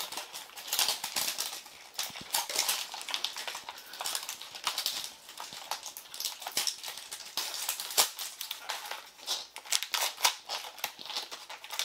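Plastic packaging of a Zuru Mini Brands blind ball crinkling and clicking as it is opened and a mini item unwrapped by hand, in a run of irregular sharp clicks and rustles with a louder snap about eight seconds in.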